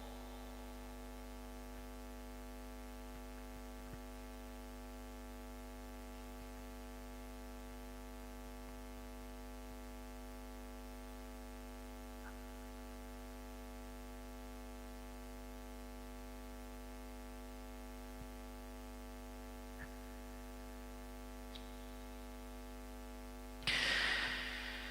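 Steady electrical mains hum, a stack of even unchanging tones, with a short louder noise about a second before the end.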